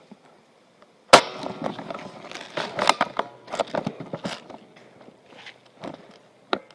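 A sharp knock, then a few seconds of irregular close knocking, clattering and scraping, and a single sharp click near the end.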